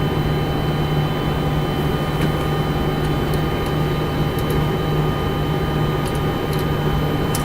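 Steady flight-deck noise of a Boeing 747-400 with its engines idling after start: a constant low drone with several steady whining tones from the air-conditioning and avionics cooling, and a few faint ticks.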